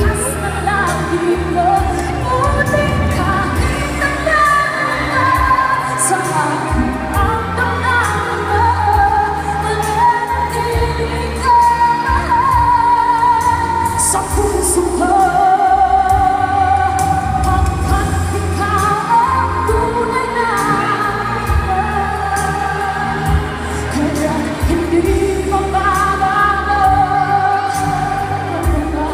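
A woman singing a pop song live into a microphone over backing music, carried by a concert sound system, with long held notes that waver.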